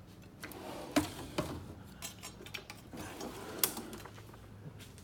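Metal toolbox drawers sliding shut and open, with several sharp clacks, the loudest about a second in, and a rattling slide between them.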